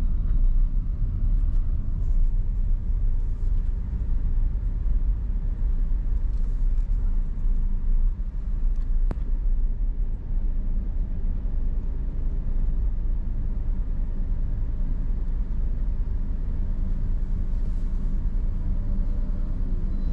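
Steady low rumble of a motor vehicle running, with engine and road noise.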